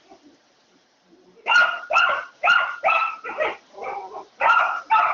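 Dog barking in a rapid series, about two barks a second, starting about a second and a half in.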